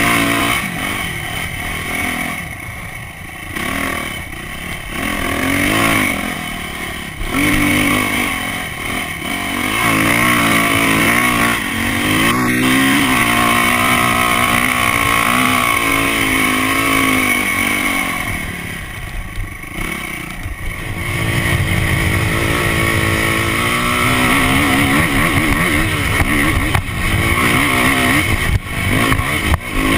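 Yamaha dirt bike engine heard close up from a camera on the bike, revving up and easing off repeatedly as it is ridden along a sand trail. It drops back about two-thirds of the way through, then pulls hard again.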